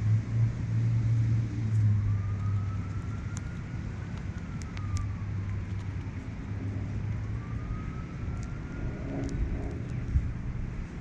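An emergency-vehicle siren wailing, its pitch rising slowly, falling, then rising again, over a steady low rumble of road traffic. A few short high ticks are scattered through.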